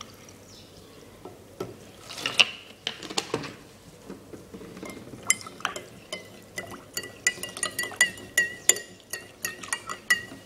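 Water poured from a plastic bottle into a glass, then a metal spoon stirring the drink and clinking against the glass. From about five seconds in the clinks come about three a second, each with a short ringing tone.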